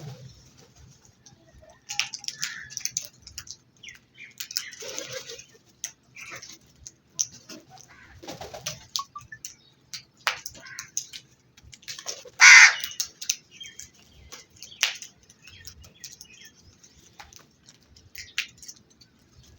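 Crows with scattered short calls, rustling and sharp clicks coming and going, the loudest burst about twelve seconds in.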